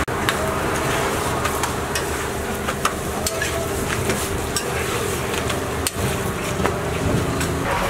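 Metal spatula scraping and clicking against a flat steel griddle as flatbreads are slid under and turned, over a steady sizzling hiss from the hot griddle. The sharp clicks come irregularly, several times a second at most.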